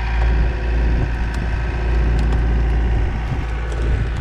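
Engine of a working machine, likely the tractor or loader used to push the trees, running steadily at idle to moderate speed while it backs up, with a few faint clicks.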